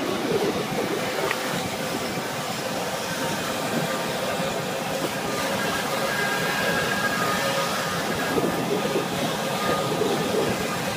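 Moped riding at a steady speed: its small engine running evenly under wind and road noise.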